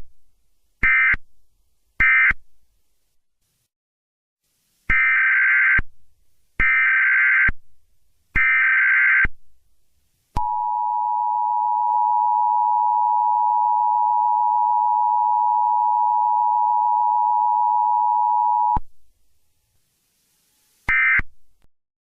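Emergency Alert System signalling: three short warbling digital data bursts about a second apart, then three longer header bursts, then the two-tone EAS attention signal held steady for about eight seconds before it cuts off, and one more short data burst near the end.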